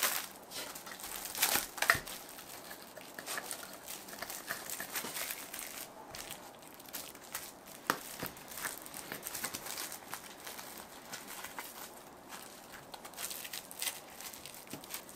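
Irregular crinkling and rustling made up of many small clicks, loudest in a brief cluster about two seconds in and with a single sharp tick a little past the middle.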